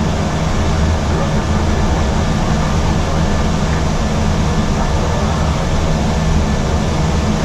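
Steady noise inside an Airbus A320 cockpit in the climb after takeoff: airflow over the nose and the engines at climb thrust, heavy in the low end, with a few faint steady tones.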